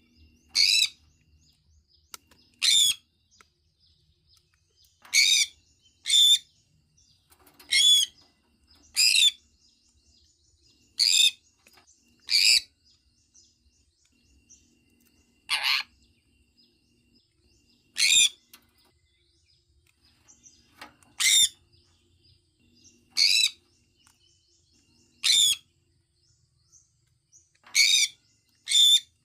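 Sun conure chirping: short, loud, high-pitched calls repeated every one to three seconds, about fifteen in all.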